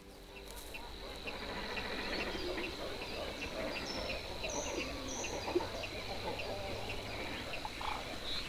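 Wetland wildlife ambience of insects and birds: a steady high whine with a regular ticking chirp about three times a second, and a few short higher bird chirps about halfway through.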